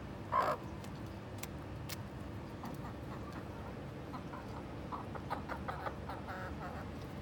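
Backyard chickens clucking. One loud short squawk falls in pitch about half a second in, and a run of short, quieter clucks follows from about two and a half seconds in.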